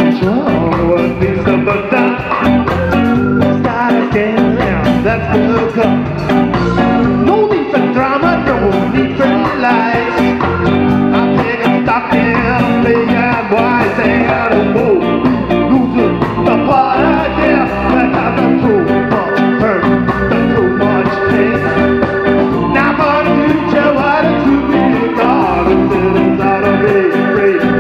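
Live band playing: saxophone over electric guitar, bass guitar and drums.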